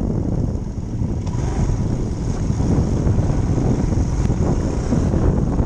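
Motorcycle running while being ridden on a dirt track, its engine mixed into heavy wind noise buffeting the body-mounted camera's microphone.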